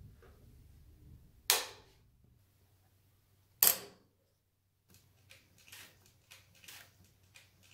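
Two loud sharp clicks about two seconds apart, the first as the power rocker switch of an Adler 267 industrial sewing machine is flipped. Then the machine sews slowly, the needle stitching at about two strokes a second over a low steady motor hum.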